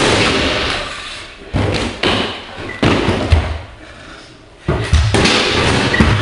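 Kick scooter riding on a concrete floor: several loud slams and thuds as it lands and hits the wooden ramp, with the rush of its wheels rolling that fades after each impact.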